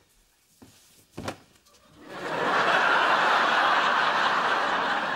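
Studio audience laughter swelling in about two seconds in and holding steady, after a couple of faint knocks.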